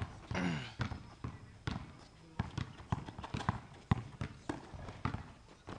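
Basketball dribbled hard on an outdoor asphalt court, bouncing in an uneven rhythm of about two bounces a second. A short voice call sounds just after the start.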